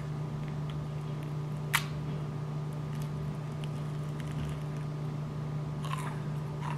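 A crisp lemon macaron shell cracking once as it is bitten, about two seconds in, over a steady low electrical hum.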